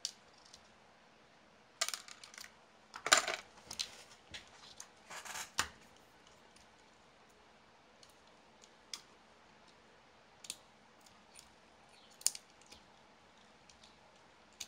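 Small plastic parts of a 1/28-scale RC car clicking and rustling as it is taken apart by hand: a burst of handling noise in the first few seconds, then scattered single clicks.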